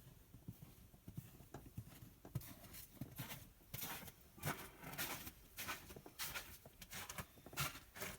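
Irregular clunks and brief scuffing, scraping noises, sparse at first and busier from about two seconds in.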